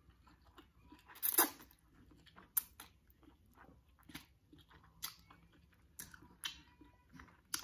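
Close mouth sounds of someone eating spicy instant fire noodles: a noodle slurp about a second in, the loudest moment, then chewing with short wet smacks and clicks about once a second.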